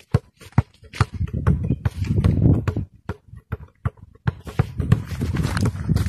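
Basketball dribbled on packed dirt: a run of repeated sharp thuds, about two to three a second. Louder rough noise comes in between about one and three seconds in and again from about four seconds on.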